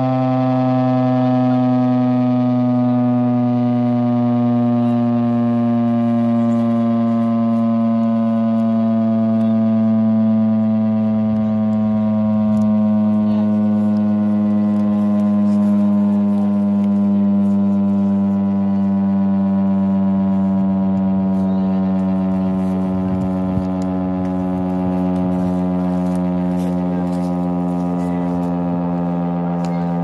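STH-10 six-horn siren sounding a steady low tone with many overtones, its pitch sinking slowly and evenly while the loudness holds.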